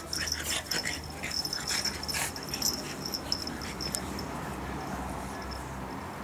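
French bulldog puppy giving short, sharp yaps at an older dog, many in quick succession over the first three seconds or so, then quieter.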